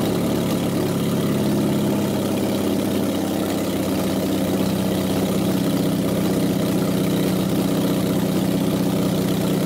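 Jaguar 2.4-litre XK twin-cam straight-six, freshly rebuilt and on an engine stand, running steadily at a fast idle. The owner puts the fast idle down to an open hole in the intake manifold that lets air bypass the carburettors.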